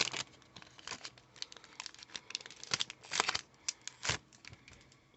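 Foil booster-pack wrapper of Pokémon trading cards crinkling and tearing as it is handled and opened: irregular crackling rustles, the loudest a cluster about three seconds in and a sharp one near four seconds.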